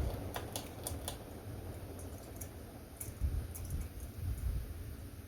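Ceiling fan running on high: a fluttering low rumble of moving air, with a scattering of light, irregular clicks.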